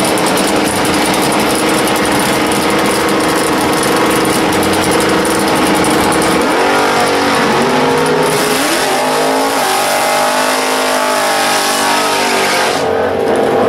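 Fox-body Ford Mustang drag car's engine running at a steady loud note, then revving up and down about six seconds in for a burnout. Its spinning rear tyres add a loud hiss for several seconds, which cuts off near the end.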